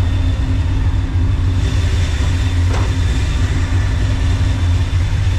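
Pickup truck engine running with a steady low rumble and a faint steady high whine.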